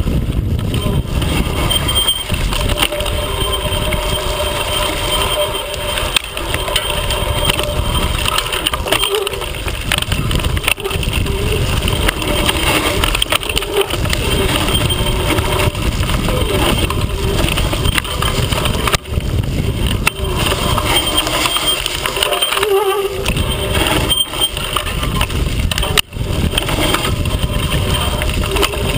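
Continuous rumble and wind buffeting on a camera microphone during a fast ride down a rough, leaf-covered forest trail. The loudness dips briefly twice in the second half.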